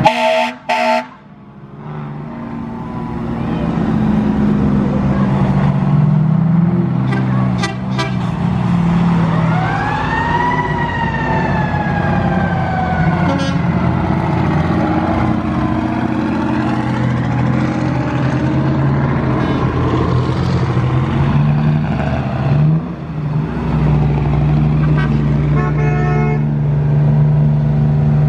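Parade of fire engine and big-rig diesel trucks rolling past one after another, their engines running steadily. About nine seconds in, a siren winds up quickly and then slowly winds down. A deeper engine drone comes in about three-quarters of the way through as another tractor unit passes close.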